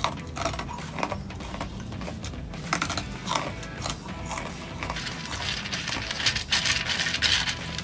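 Crispy fried snacks being crunched and chewed close to the microphone, a quick run of sharp crunches. About five seconds in, a denser rustling crackle as fingers pick through the pile of crunchy snacks on the plate.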